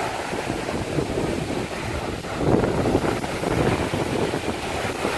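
Small sea waves washing over a pebble beach at the water's edge, mixed with wind buffeting the microphone; the wash swells a couple of times around the middle.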